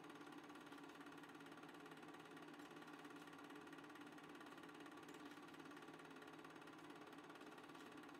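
Near silence: a faint, steady hum and hiss with no distinct sounds.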